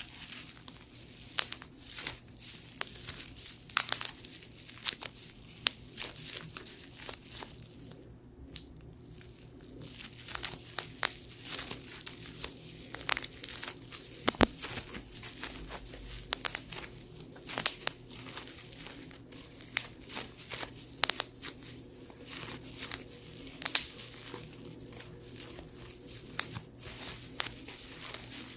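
Bubble wrap being popped by hand: irregular sharp pops, several loud ones, over steady crinkling of the plastic sheet, with a brief lull about eight seconds in.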